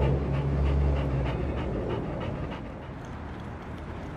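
Black Labrador retriever panting hard, a quick rhythm of about three or four breaths a second that fades out about halfway through. A low steady hum lies under the first second and a half.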